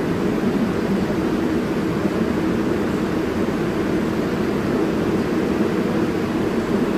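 Steady rumble of a New York City Subway car of the R142 series running through a tunnel, heard from inside the car: wheels on rail and tunnel roar.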